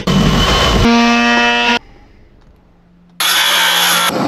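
Power tools in quick cuts: a harsh cutting noise as a spinning disc bites into a metal can, a brief steady whine, then after a lull of about a second and a half a cordless circular saw cutting through a wooden door.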